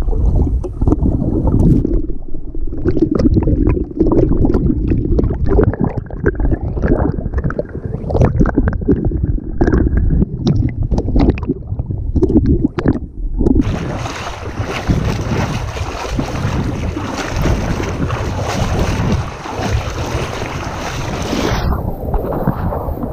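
Water heard from a camera held underwater: muffled, low sloshing with scattered knocks and bubbling. About thirteen seconds in it changes abruptly to a steady, bright rush of water splashing around legs wading through shallow water.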